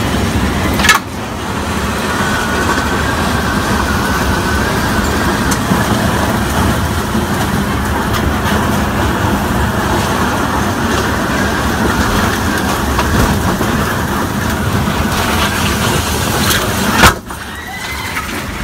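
Violent storm wind blowing hard with rain, heavy wind noise over the microphone, with a thin wavering whistle for a few seconds. A sharp bang comes about a second in and a louder one near the end, after which the noise drops suddenly.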